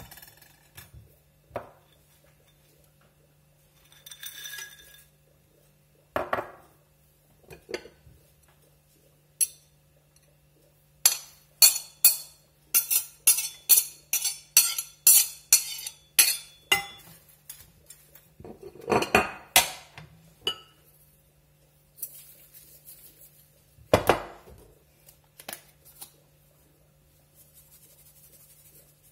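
Cutlery clinking and scraping against ceramic plates and a glass dish as salad ingredients are scraped in. A fast run of sharp taps comes about a third of the way in and lasts several seconds, with a few longer scrapes later.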